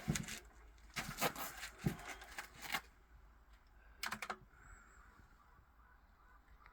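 Clicks and rattles of a .22 LR rifle and gear being handled between shots, in short clusters through the first half and about four seconds in.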